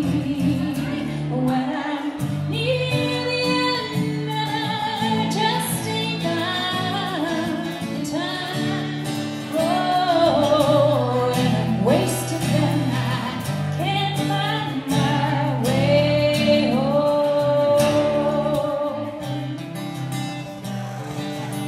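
A woman singing into a microphone over a strummed acoustic guitar, her voice with a slow wavering vibrato on held notes. Near the end her voice falls away and the guitar carries on alone.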